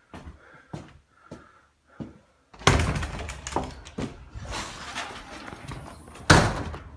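A run of light knocks, then a sudden loud bang about two and a half seconds in, followed by clattering and rattling, and a second loud bang near the end.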